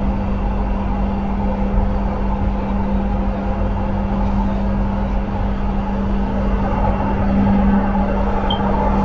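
Jabodebek LRT train running along its track, heard from inside the front car: a steady low rumble with a constant hum.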